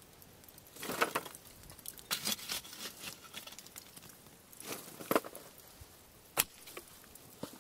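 Glowing lump charcoal being shovelled into a brick-lined fire pit: a scattering of scrapes and sharp clinks from the shovel and falling coals, with light crackling.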